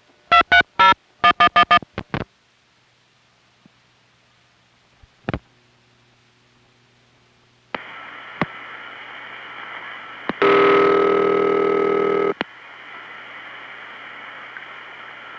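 A quick string of short multifrequency tone pulses keying a number into a long-distance telephone trunk. Then a few clicks, open line hiss coming up as the call connects, and one two-second burst of buzzy ringback tone before the line goes back to hiss.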